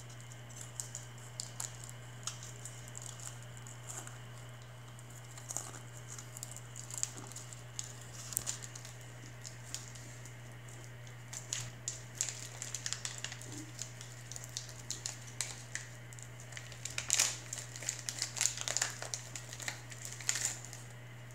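Crinkling and crunching from handling crackers and their wrapping: irregular small crackles and clicks, thickest near the end, over a steady low hum.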